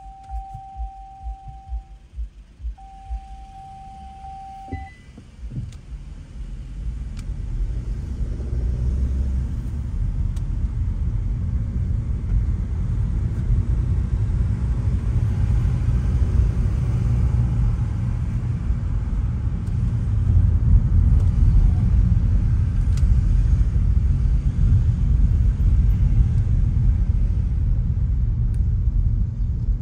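Car driving, heard from inside the cabin: a low road and engine rumble that builds as the car pulls away about six seconds in and stays steady. Two long electronic beeps sound in the first few seconds, before it moves off.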